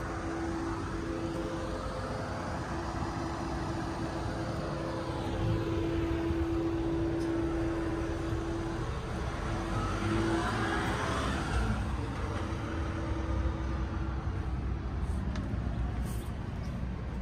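Motor vehicles passing, their noise swelling and fading twice around the middle, over a low rumble and a steady hum.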